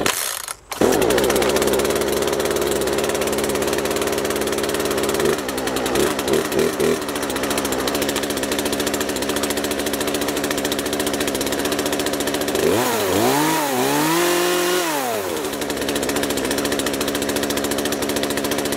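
Two-stroke engine of a Craftsman gas chainsaw, pull-started and catching within the first second, then running at a fast idle. It is blipped briefly around six seconds in and revved up and down a few times near thirteen to fifteen seconds. The idle is set high enough that the chain turns without the trigger pressed: the saw needs its idle adjusted.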